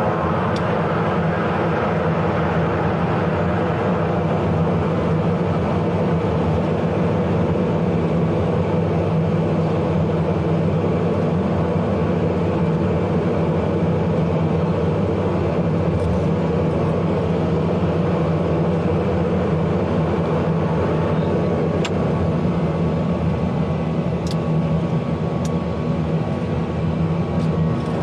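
Embraer EMB-121 Xingu's twin turboprop engines and propellers running at low taxi power, heard inside the cockpit as a steady drone with an even hum, and a few faint clicks in the second half.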